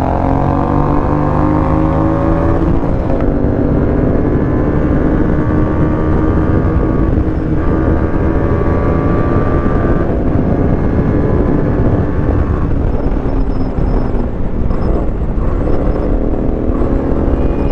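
Bajaj Dominar 400's single-cylinder engine pulling hard at full throttle, its pitch climbing through the gears and dropping back at each upshift, over heavy wind rush on the microphone at highway speed.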